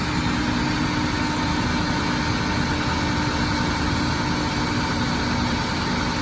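Ford F450's Power Stroke diesel engine running steadily with the PTO engaged, driving the boom hydraulics while the ETI main boom is lowered. A constant tone sits over the engine's even hum, with no change in speed.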